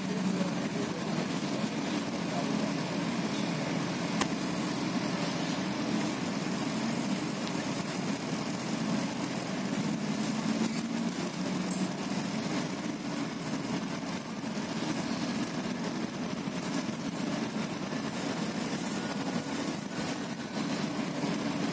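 Steady engine and road noise heard from inside a moving double-decker bus: an even, low hum.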